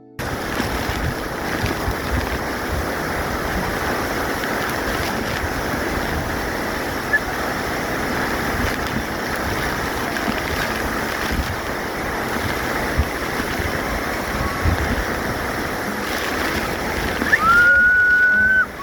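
Waterfall's rushing water, a steady, even roar. Near the end a high whistling tone sounds once for about a second.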